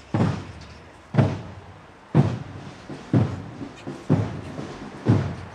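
A drum beaten in a slow, steady march rhythm, about one heavy beat a second with lighter taps between, six main beats in all.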